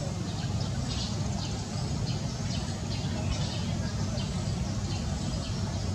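Outdoor background noise: a steady low rumble with short high chirps repeating about every half second.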